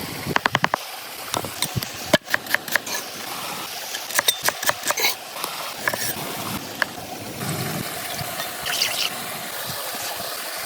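Steady rush of a stream, with sharp clicks and knocks of cooking preparation over it: a quick run of even clicks at the start, a loud knock about two seconds in, and more clusters of clicks a few seconds later.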